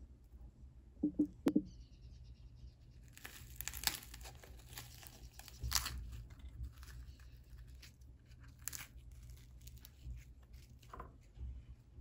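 Crisp crust of a baked pão de queijo crackling and tearing as the roll is pulled apart by hand. It starts about three seconds in and comes as a run of fine crackles, with a few louder ones.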